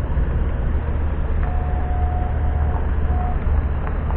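Steady low rumble of a moving train heard from aboard, with a thin steady high tone for about two seconds in the middle.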